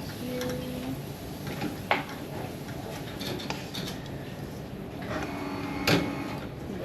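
Metal utensil clinking and scraping against a pan while pad thai noodles are stirred, with two sharper clanks, about two seconds in and near the end.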